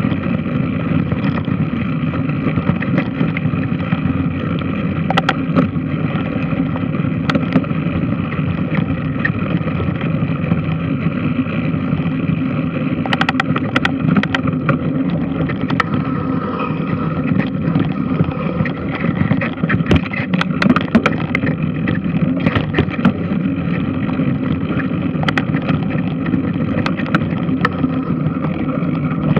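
Large washing machine running: a steady mechanical drone with scattered sharp clicks and knocks.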